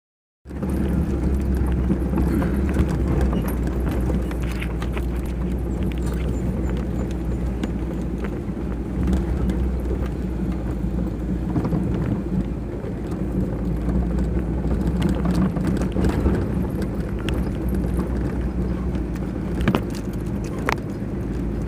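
A vehicle driving over a rough off-road track: a steady low rumble of engine and tyres with frequent short knocks and rattles from the bumpy ground.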